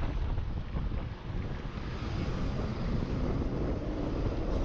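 Wind buffeting the microphone of a chest-mounted GoPro on a moving road bike: a steady rushing noise, heaviest in the low end.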